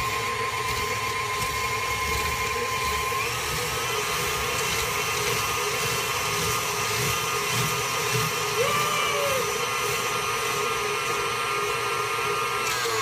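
KitchenAid stand mixer motor running a spiralizer attachment that turns a pear against the peeling blade and slicer. A steady motor whine that steps up in pitch about three seconds in and begins to wind down at the very end.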